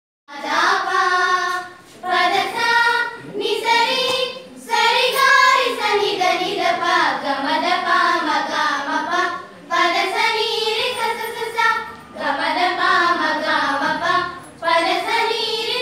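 A small group of schoolchildren singing a song together in unison, in phrases of a few seconds with short pauses between them.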